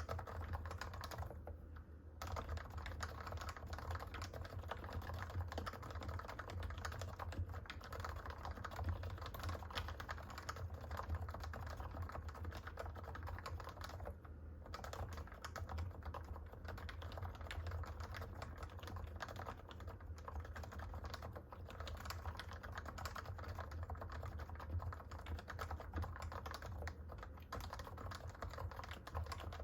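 Typing on a Realforce 45g Topre electro-capacitive keyboard: rapid, continuous keystrokes, with short pauses about two seconds in and halfway through, over a steady low hum. The switches are fully lubed with Krytox 205g0 on the stems, springs and stabilisers, with only a thin coat on the housings to keep some of stock Topre's rattle.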